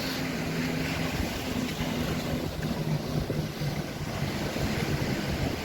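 Surf washing on a beach, with wind on the microphone, over a low steady hum that fades out about four seconds in.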